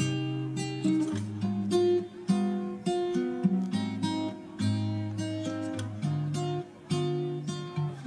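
Background music played on acoustic guitar: a steady run of plucked notes over changing bass notes.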